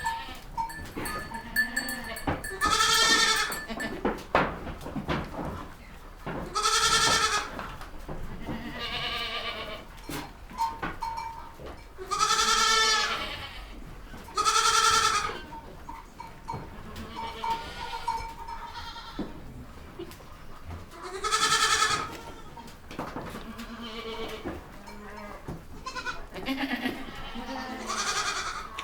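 Goats bleating over and over: about ten wavering calls of roughly a second each, some loud and close, others fainter.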